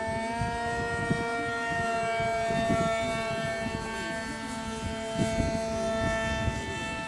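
Electric motor of a homemade foam RC model plane running with a steady high whine, its pitch rising slightly about a second in and dipping a little later, as the throttle changes. Irregular low rumbles sound underneath.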